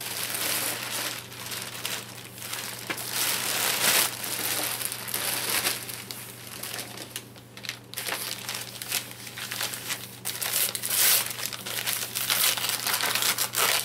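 Clear plastic bag crinkling and rustling in irregular bursts as items are pulled out of it and handled.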